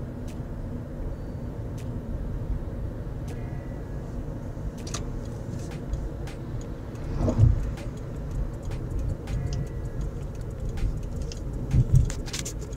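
Road and engine noise inside a car driving at speed, a steady low rumble with faint scattered clicks and rattles. There are two heavier low thumps, about seven seconds in and again near the end.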